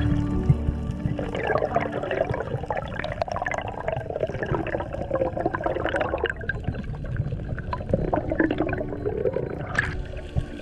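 Water gurgling and bubbling, picked up underwater during a spearfishing dive, a dense irregular bubbling that comes and goes in waves.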